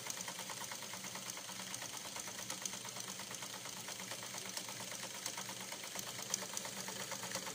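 Japanese-made Dressmaker sewing machine sewing a zigzag stitch at a steady speed, running quietly with a rapid, even ticking from the needle mechanism.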